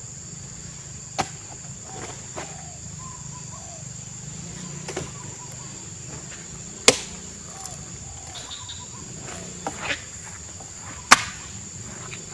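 Sharp, irregular knocks of oil palm fruit bunches being loaded into a truck bed with a spiked pole, about six in all, the loudest about 7 and 11 seconds in. A steady high-pitched insect drone runs underneath.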